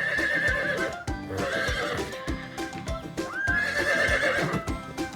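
Horse whinnying three times, each a quavering high call, the third starting with a rising sweep. Background music with a steady beat plays underneath.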